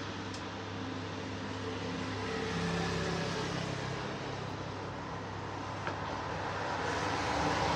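Steady hum and rush of the rotisserie grill's ventilation fan, swelling gently twice, with a single light click about six seconds in.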